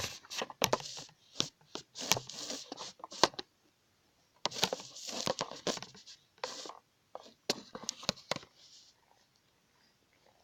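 Handling noise: a run of sharp plastic clicks and knocks mixed with rustling and scraping, in two clusters with a short pause between, as a phone or camera is fitted into a small plastic toy car.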